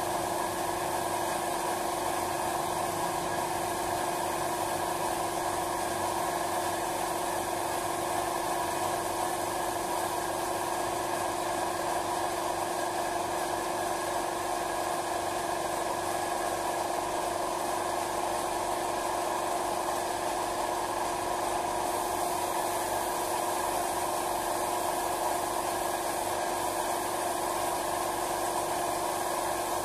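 A compressed-air paint spraying rig running steadily: a constant machine hum with steady tones under an even hiss of air, with no break.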